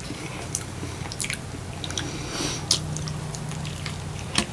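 Close-up chewing of a mouthful of burger: wet mouth clicks and smacks scattered through, over a low steady hum.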